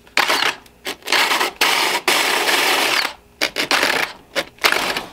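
Power drill with a 1 1/8-inch paddle bit boring down into a rigid foam skull, run in about four bursts of rasping grinding, the longest about two seconds in the middle.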